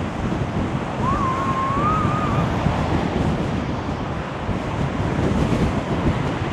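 Strong wind buffeting the microphone over a rough sea surging against the sea wall, a steady, dense rush. About a second in, a thin wavering whistle-like tone sounds for about a second and a half.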